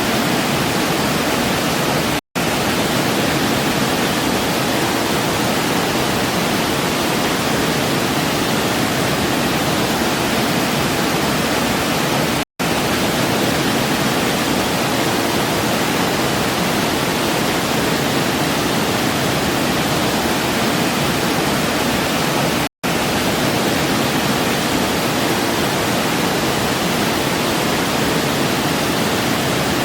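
Steady, even rushing of a waterfall cascade. Three very short gaps of silence break it, about ten seconds apart.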